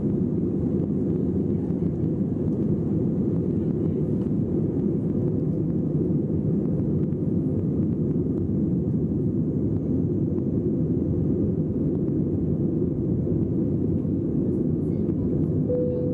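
Jet airliner engines at take-off power heard from inside the passenger cabin: a steady, heavy low rumble through the take-off roll and lift-off. A brief tone sounds near the end.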